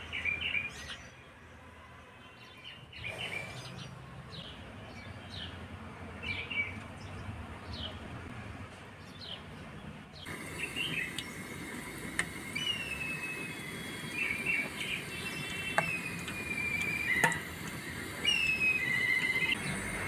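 Small birds chirping and calling again and again in short falling whistles, with two sharp knocks in the second half.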